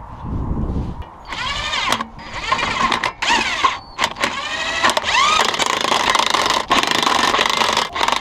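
Electric power tool running wheel nuts on, in a series of bursts a second or two long, its motor pitch sliding down and back up within each burst; a low thump comes just before the first burst.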